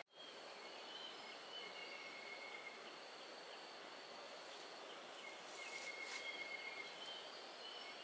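Steady forest ambience: an even rushing hiss with short, thin, high calls now and then, the clearest about two seconds in and again about six seconds in.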